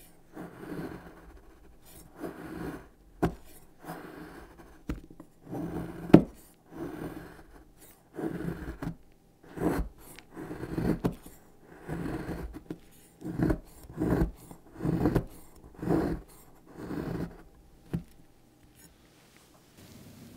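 Kitchen knife shaving a block of strawberry chocolate into thin curls: repeated scraping strokes about one a second, several ending in a sharp click as the blade comes down onto the mat. The strokes stop near the end.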